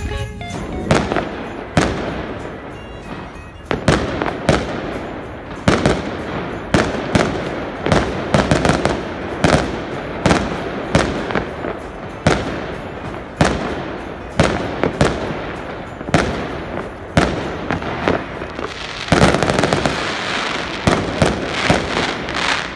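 Aerial fireworks going off in quick, irregular succession: many sharp bangs, often less than a second apart, over a steady rumble, growing denser for a few seconds near the end.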